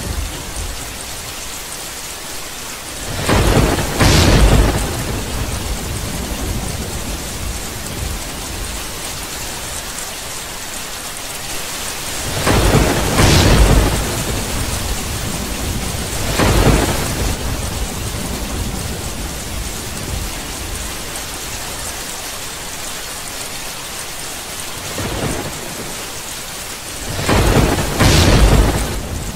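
Steady rain hissing, broken by rolling peals of thunder: four loud rumbling claps, a few seconds in, twice around the middle and near the end, with a fainter one shortly before the last.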